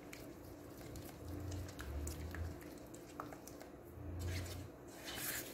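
Silicone spatula stirring melting milk chocolate and cream in the metal pot of an electric rice cooker: faint squishing and scraping, with a couple of low bumps.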